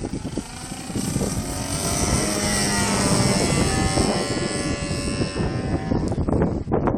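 Radio-controlled Edge 540 aerobatic model plane's motor and propeller running in flight, the pitch drifting as it flies past. Wind buffets the microphone near the end.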